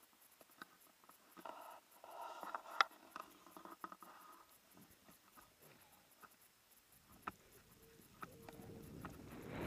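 Faint rustling and scattered clicks from a skier's clothing, gloves and handheld camera pole while standing in deep powder snow. Near the end a rushing hiss of snow builds as the skier sets off through the powder.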